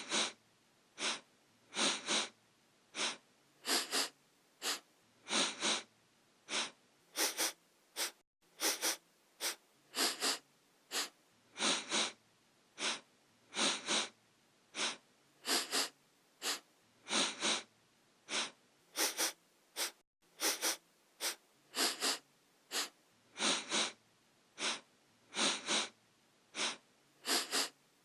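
A person sniffing through the nose over and over: short, sharp sniffs, often in quick pairs or threes, with brief pauses between.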